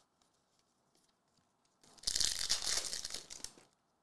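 A hockey card pack's wrapper being torn open, a rustling tear of about a second and a half starting about two seconds in.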